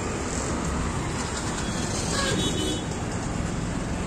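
Steady city street traffic noise from passing vehicles, with a brief pitched sound about two seconds in.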